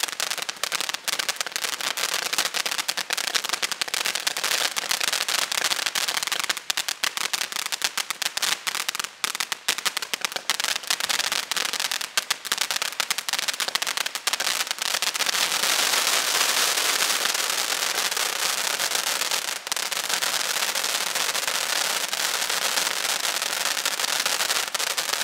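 Barn Burner ground fountain firework spraying sparks, with dense crackling throughout. From a little past halfway, a steadier, louder rushing hiss takes over with fewer separate crackles.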